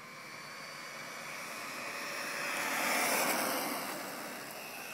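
Traxxas Stampede 4x4 VXL RC truck driving past on pavement: the whine of its brushless motor and the hiss of its tyres swell as it comes closer, are loudest about three seconds in, then fade as it moves away.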